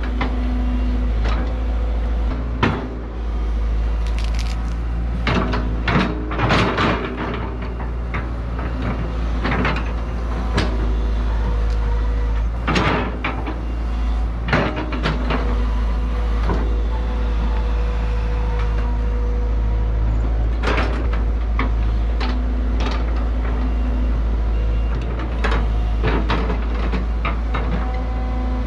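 Tracked excavator's diesel engine running steadily while it digs, with irregular clanks and cracks from the bucket working the ground.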